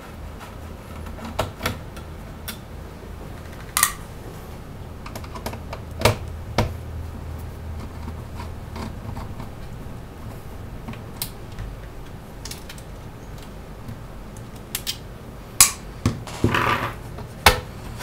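Scattered sharp clicks and taps of a Phillips screwdriver and fingers on the sheet-metal chassis of a Lenovo ThinkCentre E73z all-in-one as small screws are backed out and a steel panel is handled, over a low steady hum. The clicks come more often near the end, with a short scrape among them.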